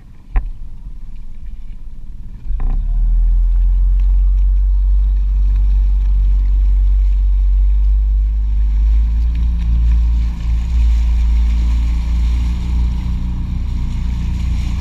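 Outboard motor on a small motorboat running. It opens up sharply about two and a half seconds in, then holds a loud, steady drone. A sharp knock comes just before that.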